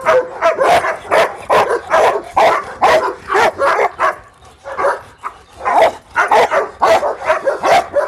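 Caucasian shepherd dog barking over and over, about two barks a second, with a short lull about halfway through.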